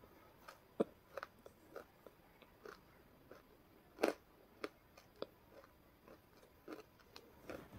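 Wet mouth sounds made right against a clip-on microphone: lip smacks, tongue clicks and small pops, irregular, about one or two a second, a few louder than the rest.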